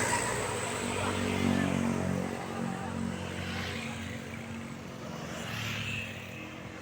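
Tour bus's diesel engine droning as it passes, loudest about a second and a half in, then fading as it pulls away.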